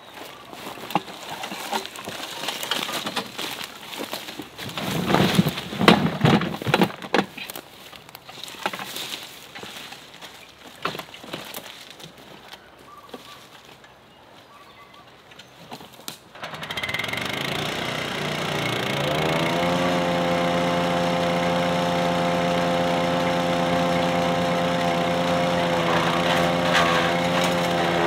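Wheelbarrow clattering with scattered knocks and clunks, loudest about a quarter of the way in. About 16 s in, a DK2 Power wood chipper's small petrol engine starts, rises in pitch for a few seconds and settles into a steady run.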